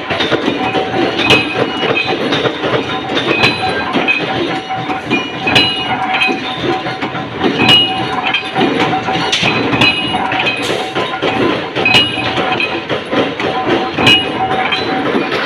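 Large mechanical punch press running and stamping metal rings, one sharp metallic strike with a brief ring about every two seconds over a steady machine rumble.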